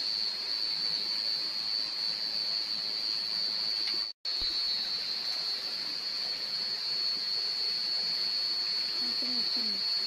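Night insects trilling in one steady high-pitched drone over a constant hiss, cut off for a moment about four seconds in.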